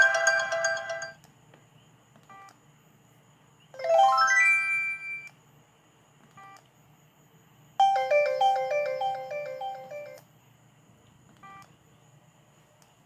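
ZTE Z222 phone ringtones playing one after another: the end of one electronic melody stops about a second in, a quick rising run of notes follows about four seconds in, and a short beeping melody of about two seconds plays later on.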